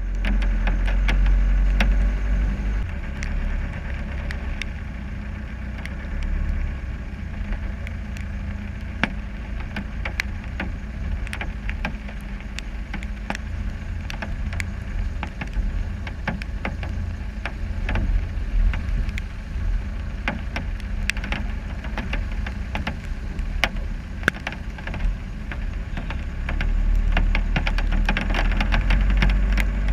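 Land Rover Discovery 300 Tdi's 2.5-litre four-cylinder turbodiesel running as the truck drives through mud, heard from a camera mounted outside the body. A deep rumble carries frequent sharp ticks, and it is louder near the start and again near the end.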